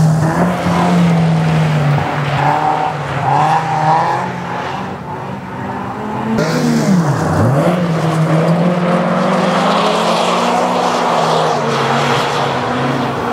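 Several racing cars' engines revving hard around a gravel track, revs rising and falling as they change gear; one engine's note drops sharply and climbs back up about seven seconds in.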